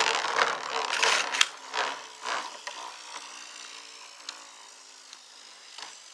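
Counterfeit Revive Phoenix Beyblade top spinning just after launch, its tip scraping against the surface and fading as it slows, with a few short clicks and knocks in the first few seconds.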